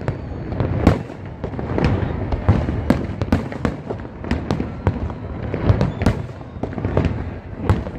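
Fireworks display: aerial shells bursting one after another at an irregular pace, about two sharp bangs a second over continuous crackle.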